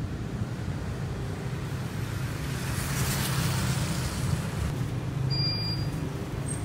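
Street traffic: a steady low engine hum, with a vehicle passing about three seconds in.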